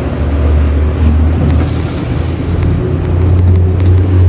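A loud, steady low hum fills the background. Over it comes light scraping and tapping as a plastic scraper gathers meat-croquette filling on a stainless-steel counter.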